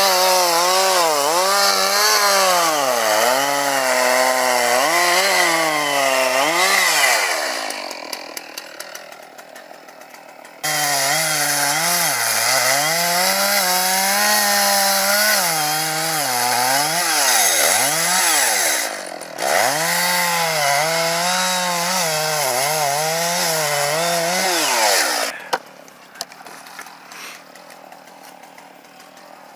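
Chainsaw cutting wood, its engine pitch repeatedly dipping and recovering as the chain bites under load. About seven seconds in the engine slows and falls away. It comes back suddenly at full revs a few seconds later and cuts out near the end, leaving faint clicks.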